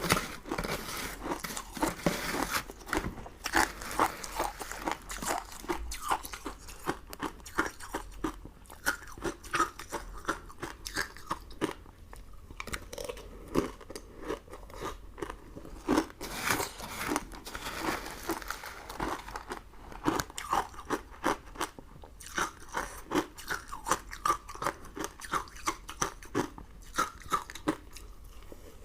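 Close-miked eating sounds: a person biting and chewing crunchy sugary sweets, a dense, irregular run of crisp crunches.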